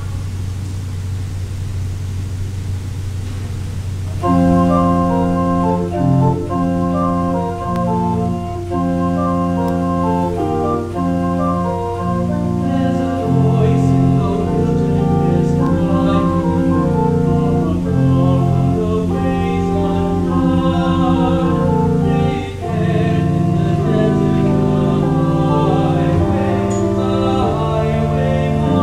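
Church organ playing slow communion music in sustained chords with changing notes, starting about four seconds in. Before it comes in, there is only a steady low hum.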